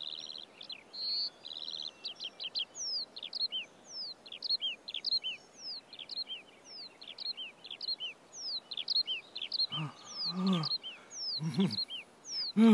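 Many birds chirping and singing together, a dense chorus of quick high chirps with no pause. Near the end a man's voice makes a few short low sounds without words.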